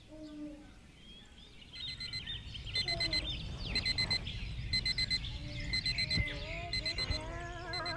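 Digital bedside alarm clock beeping: short clusters of rapid electronic beeps repeating about once a second, starting about two seconds in.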